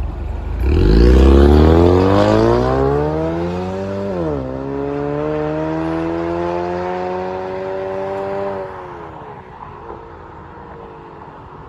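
Ford Mustang 2.3 EcoBoost turbocharged four-cylinder through a JHG valved mid- and rear-section exhaust, accelerating hard away. The note rises steeply, drops at an upshift about four seconds in, climbs again through the next gear, then falls and fades near the end as the car drives off.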